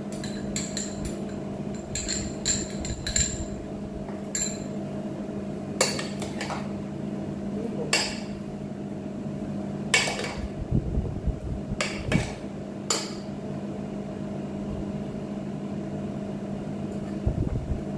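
A spoon clinking and knocking against the sides of a cooking pot as salad is tossed in it: a dozen or so sharp clinks, scattered and mostly in the first thirteen seconds, over a steady low hum.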